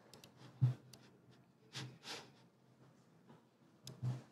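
Sparse clicks and soft thumps from a laptop being operated at a lectern: keys and trackpad tapped, with a couple of louder knocks about half a second in and near the end.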